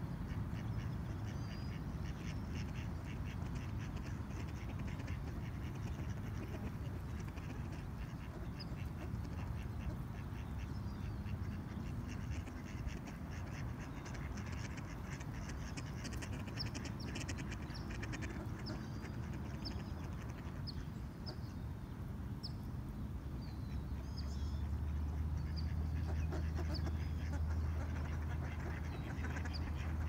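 Mallard ducks quacking, over a steady low rumble of distant traffic, with short high chirps of small birds. A louder low hum comes in about three-quarters of the way through.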